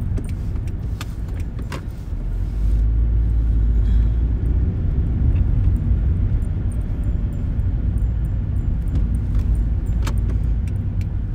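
Car cabin noise while driving: a steady low engine and road rumble that grows louder about two and a half seconds in, with a few light clicks and rattles.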